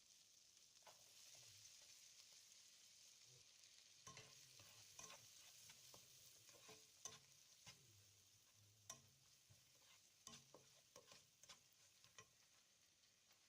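Food sizzling in a pan while being stirred, with a spatula scraping and knocking against the pan many times.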